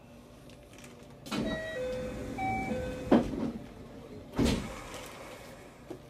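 Passenger doors of a JR West 225-series train closing at a station stop: a few short tones at different pitches, then two thumps as the doors shut, the sharper and louder one about three seconds in and a second about a second later.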